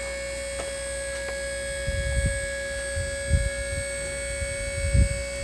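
Electric-hydraulic dump bed pump running with a steady whine as it raises the bed, with several low thumps from about two seconds in.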